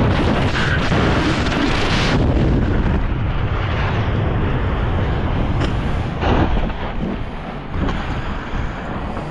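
Air rushing hard over the helmet camera of a jet pilot who has just ejected, very loud for about the first two seconds, then settling into a lower, steady buffeting rush as he hangs under the parachute. A few dull thumps come between about six and eight seconds in.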